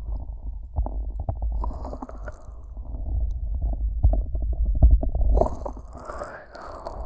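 Fingers rubbing thick Vaseline over and around a 3Dio binaural microphone's ear, heard close inside the ear: muffled sticky squishing and crackling over a low rumble, with a brighter burst of rubbing about five and a half seconds in.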